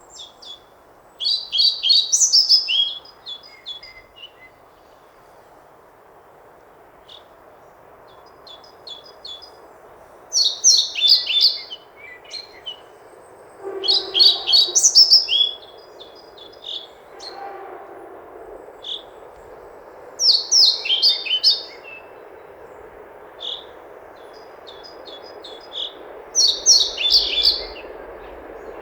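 European pied flycatcher (Ficedula hypoleuca) singing: five short, quick, high-pitched song phrases repeated about every six seconds, with scattered single high notes in between, over a steady low background hiss.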